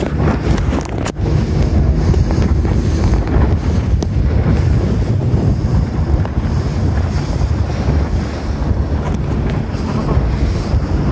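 Steady wind buffeting the microphone over the drone of a tour boat's engine and the rush of water as the boat runs.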